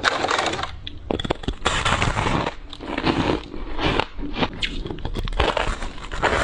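Ice being bitten and chewed close to the microphone: a run of loud crunches, about one a second, with sharp cracks and squeaks in between.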